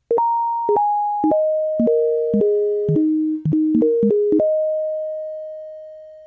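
Short synthesizer melody: about ten struck notes that each die away, stepping down in pitch and then back up, the last note held and slowly fading out.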